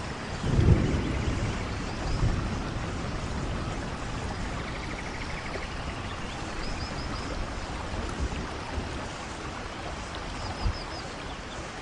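Steady heavy rain in a rainforest, with low rumbles of thunder about half a second and two seconds in. A short run of about four high chirps sounds twice, near the middle and near the end.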